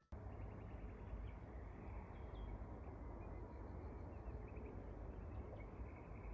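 Faint outdoor ambience: a steady low rumble with a few short, high bird chirps scattered through it.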